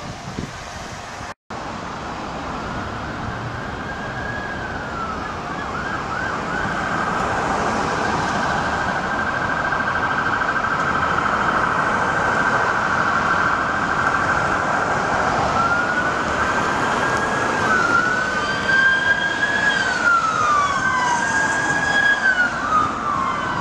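Police cruiser's electronic siren approaching through street traffic, getting steadily louder. It switches from a fast warbling yelp to slow rising and falling wails near the end.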